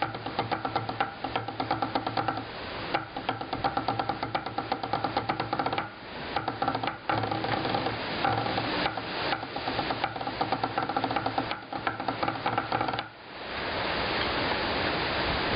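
Drumsticks playing a fast drum corps lick, dense rapid strokes over a steady pitched ringing. The playing stops suddenly about 13 seconds in, leaving a steady rush of wind noise.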